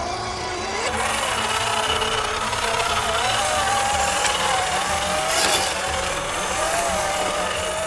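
Electric motor and gearbox whine of a scale RC Land Rover Discovery crawler, rising and falling in pitch as the throttle changes while it drives over wet rock and through shallow water. A short scraping burst comes about five seconds in.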